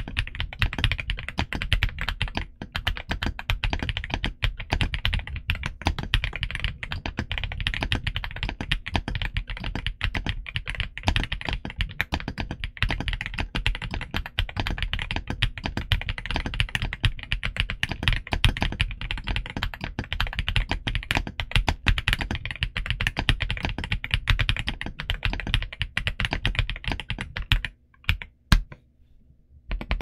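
Fast continuous typing on a Redragon K686 Pro SE gasket-mounted mechanical keyboard with lubed Outemu HiFi linear switches and dye-sub PBT OEM keycaps: a dense stream of keystrokes. Near the end the typing breaks off for about two seconds with only a stray keystroke or two, then resumes.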